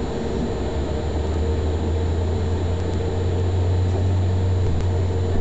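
Tram running on its rails, heard from inside just behind the driver's cab: a steady low hum with rolling noise and a steady higher tone, growing a little louder.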